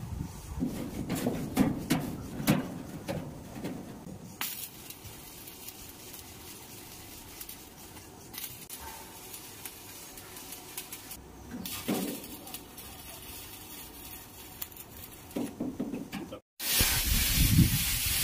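Arc welding on a steel boat hull: a faint, steady crackle of the arc, with sharp metallic clanks in the first few seconds. After a sudden cut near the end, a plasma cutter slicing a steel plate gives a loud, steady hiss.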